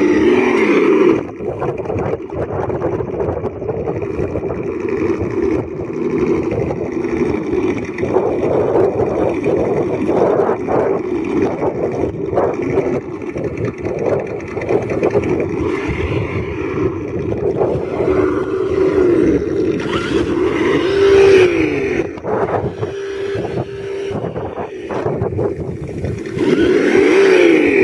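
Axial Bomber RC rock crawler's engine sound kit playing a simulated engine through its speaker. It runs steadily, with rev-ups that rise and fall in pitch twice near the end, over scattered clicks and scrapes from the truck. The sound kit has been fixed and is working.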